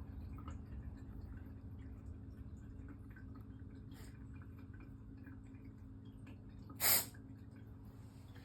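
A British Shorthair cat sneezing once, a single short sharp sneeze about seven seconds in, over a faint steady hum. It is one of the repeated sneezes that the owner is recording to show a vet.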